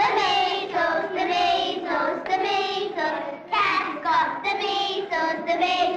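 Children singing a tune, in held notes broken into short phrases.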